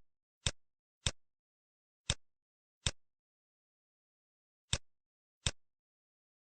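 Computer mouse clicking, six single sharp clicks at uneven intervals, the first two about half a second apart and the last two near the end.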